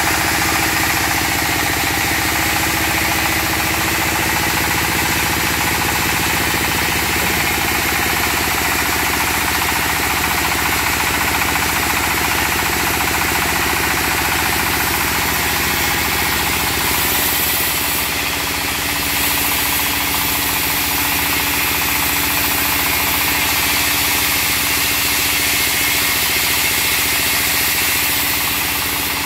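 Single-cylinder diesel engine on a trailer-mounted band sawmill running steadily with a fast, even knocking beat, driving the saw on a test run.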